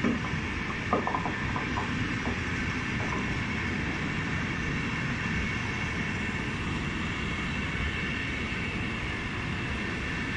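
Intercity train coaches rolling along the track, a steady rumble of wheels on rails with a few clicks about a second in and a steady high tone running through it.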